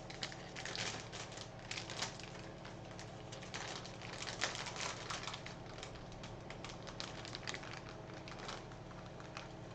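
Cardboard and plastic packaging rustling and crinkling, with scattered clicks and taps, as a graphics card is handled out of its box. The handling is busier in the first half and thins out later.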